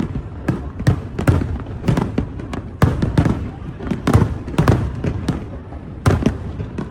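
Aerial fireworks going off in a fast, irregular string of sharp bangs, several a second, each with a short rumbling tail.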